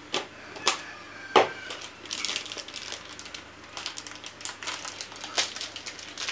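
Sharp clicks and taps of a small plastic spice tub and a metal spoon being handled, the loudest about a second and a half in, followed by runs of quick crackling clicks of plastic being handled.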